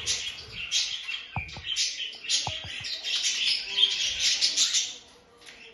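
Many small birds chirping together in a dense, rapid chorus of high chirps that thins out and gets quieter near the end. Two short falling tones sound lower down near the middle.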